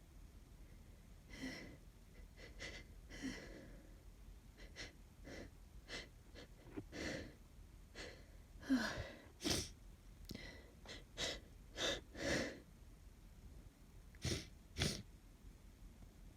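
A woman with a cold sneezing again and again, with gasping, wheezy breaths between the sneezes. The loudest sneezes come about nine seconds in, and two short, sharp ones come near the end.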